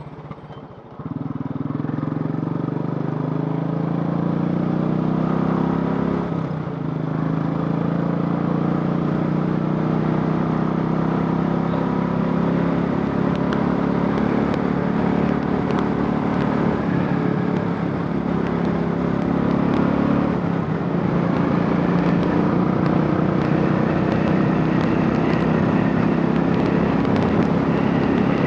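Royal Enfield Classic 500 single-cylinder engine, converted to a carburettor, pulling away about a second in. The revs rise, break briefly a quarter of the way through as it shifts gear, climb again, and settle into steady running after another change near the end.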